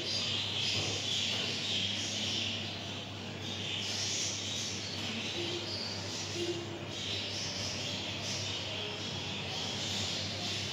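Background room noise: a steady low hum with a fluctuating hiss, and no distinct events.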